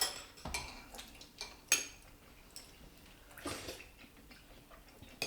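Chopsticks and cutlery clinking against ceramic dishes while eating: several sharp clinks in the first two seconds, the loudest just before the two-second mark, then a softer scraping sound a little later.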